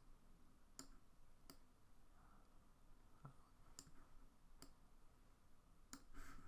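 Computer mouse clicking, faint and sharp, about seven times at irregular intervals over near-silent room tone.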